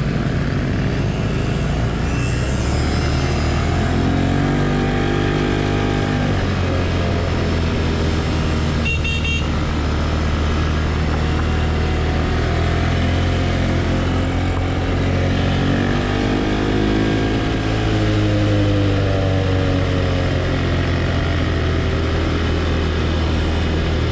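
Grizzly 200cc ATV engine running on the move, its pitch rising and falling with the throttle. A short high beep comes about nine seconds in.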